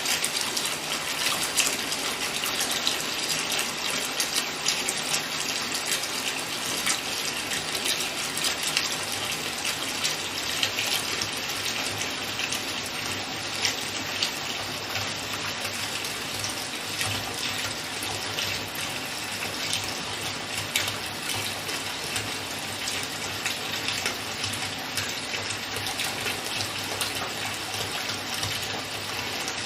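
Water running from a tap into a bathtub as it fills, a steady splashing gush with fine crackle.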